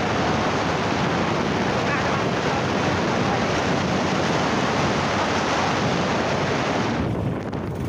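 Steady, loud rush of wind buffeting a phone's microphone while riding on a motorcycle. It drops away suddenly near the end.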